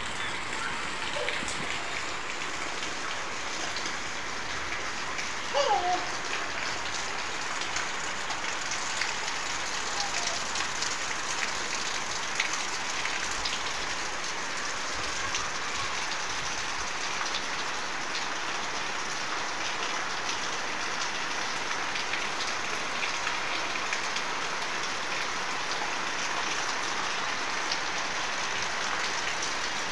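Steady rain falling on wet ground, a dense patter of drops throughout, with a brief falling call about six seconds in.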